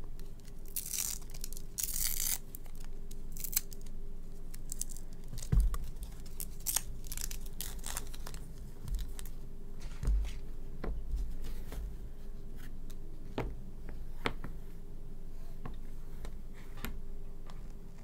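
Hands handling a braided custom keyboard cable: rustling and tearing in the first couple of seconds as the coil is unwrapped, then scattered light knocks and clicks as the cable and its metal aviator connector are moved about and set down on a cloth desk mat.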